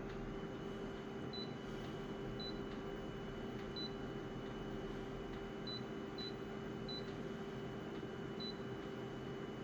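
Short high key beeps from a Konica Minolta photocopier's control panel, about seven at irregular spacing as its buttons are pressed, over the copier's steady hum and a thin high whine that starts just after the beginning.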